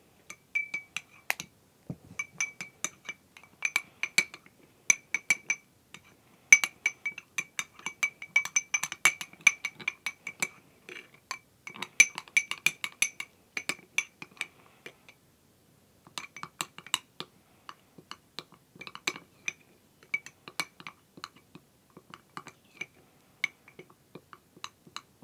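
Metal spoon clinking and scraping against a small cut-glass bowl while stirring a thick gram-flour face-pack paste: quick, irregular taps, each with a short glassy ring. The tapping stops for about a second some fifteen seconds in, then resumes.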